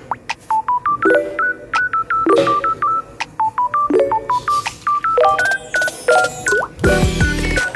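Background music: a quick run of short, high, beep-like electronic notes, each dipping in pitch, with a fuller beat and bass coming in near the end.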